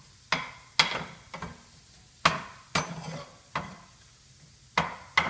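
A utensil clinking and knocking against a pan while jackfruit-rind pieces are stirred in hot oil for deep frying: about ten sharp, irregular clinks, each with a short ring.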